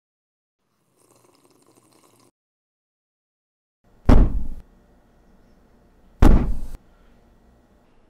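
Two loud, sudden bangs about two seconds apart, each with a short ringing tail, like a door slamming.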